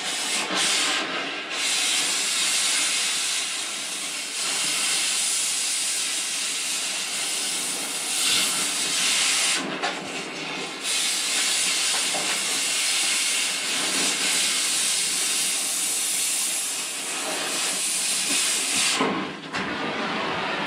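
Steady loud hissing of an oxy-fuel cutting torch cutting through steel, with short breaks about a second in, near the middle and near the end.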